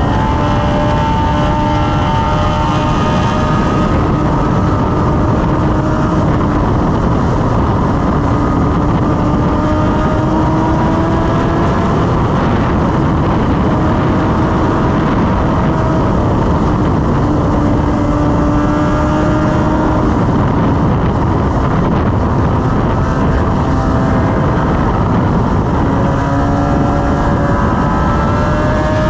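BMW S1000RR inline-four engine cruising at highway speed, its note drifting slowly up and down with small throttle changes, under heavy, steady wind rush on the microphone.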